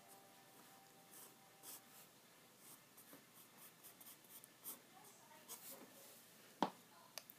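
Pencil drawing on sketchbook paper: faint, short scratching strokes. Near the end comes a single sharp knock.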